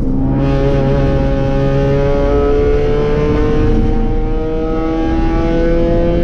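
B-Spec race car's small four-cylinder engine pulling hard at full throttle. A gear change comes right at the start, and then the pitch climbs slowly and steadily as the car gathers speed in a long gear.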